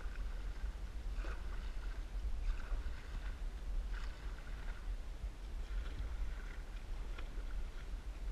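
Canoe paddle strokes through calm water, a short splash and swirl about every second or so, over a steady low rumble.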